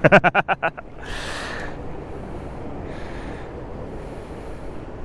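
A short run of rapid laughter, then a breathy exhale, over steady outdoor background noise.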